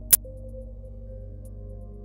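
Ambient electronic music from Korg Gadget synths: sustained pad tones over a low sub bass, with a new pad note coming in just after the start and a faint high tick of the beat. A single sharp, loud click sounds just after the start.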